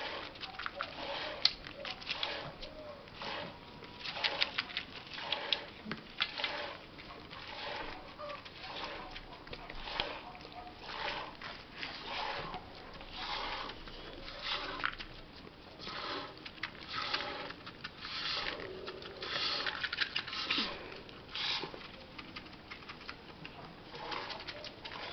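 Goat being milked by hand: milk squirting into a pail in short spurts, a steady rhythm of about one to two squirts a second.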